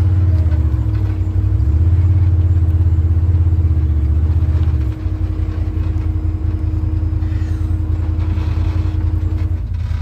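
A UTV's engine running while it drives, a loud low drone that shifts to a faster, more pulsing rumble about halfway through.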